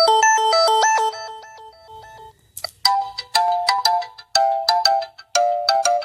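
Samsung Galaxy S25 Ultra ringtones playing: one looping melodic ringtone plays for about two seconds and breaks off, then a different ringtone of short, sharply struck notes starts.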